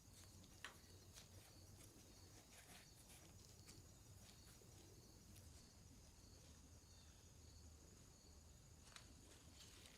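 Near silence: faint room tone with a steady high whine and a low hum, and a few faint, scattered clicks.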